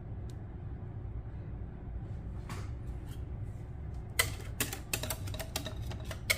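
Sharp clicks and taps of kitchenware, starting about four seconds in and coming several times a second, as the last cake batter is poured and worked out of a glass mixing bowl into a round metal cake pan. A steady low hum lies underneath.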